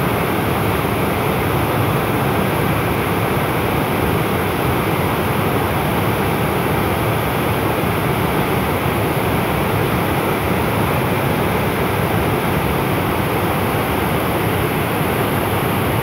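Waterfall in heavy flow, water plunging off a rock ledge and churning into a pool below, making a steady, unbroken rush.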